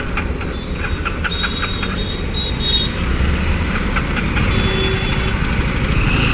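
Road traffic noise: vehicle engines running close by, getting louder toward the end, with a few faint high horn toots in the background.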